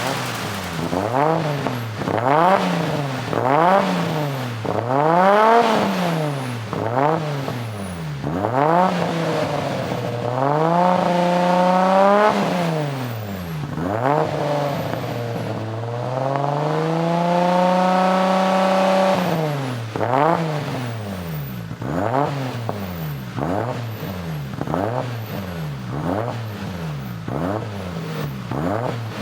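Lexus SC300's 2JZ-GE inline-six being revved in quick blips, its pitch rising and falling about once a second. Twice it is held up at higher revs for a second or more before dropping back.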